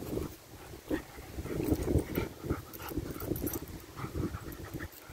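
A beagle and a golden retriever puppy play-wrestling, making dog vocal noises and panting in irregular bursts, with wind rumbling on the microphone.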